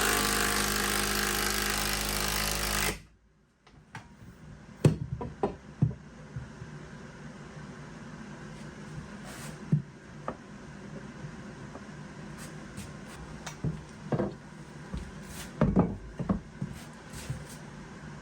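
A power tool's motor runs steadily for about three seconds and stops suddenly, followed by scattered knocks and clicks of wood and tools being handled on a workbench.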